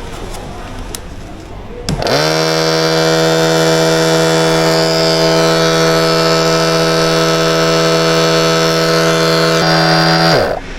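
A steady, loud mechanical whine from a spinning electric motor. About two seconds in it spins up quickly, holds one pitch for about eight seconds, then spins down and cuts off near the end.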